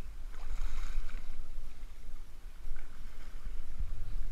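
Water splashing as a hooked striped bass thrashes in the shallows, in a couple of flurries, over a steady low wind rumble on the microphone.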